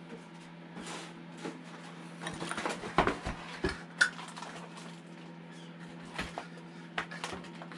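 Small hard parts clinking and knocking as they are picked up and handled, busiest around three seconds in, over a steady low hum.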